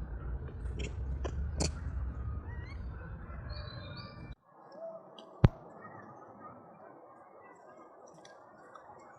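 Outdoor background with a low rumble, a few sharp clicks and short high chirps. It cuts off abruptly about four seconds in, followed by one loud sharp click and quieter background with faint chirps.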